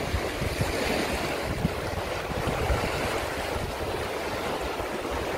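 River rapids rushing and churning around an inflatable raft, a steady rush of whitewater, with wind buffeting the microphone in low gusts.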